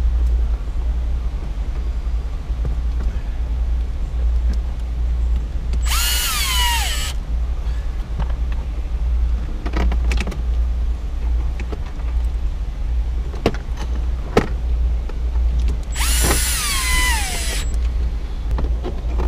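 A power tool runs twice in short bursts of about a second and a half, its whine falling in pitch each time, over a steady low hum.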